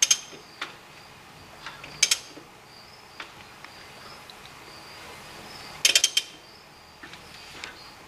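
Ratchet wrench on the Toyota 22RE's crankshaft pulley bolt, turning the engine over by hand toward top dead centre: short bursts of ratchet clicks and metal clinks at the start, about two seconds in, and near six seconds, with scattered single clicks between.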